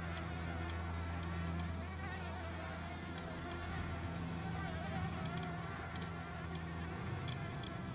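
Green-eyed flower bee (Anthophora bimaculata) buzzing in flight, a steady hum that wavers up and down in pitch.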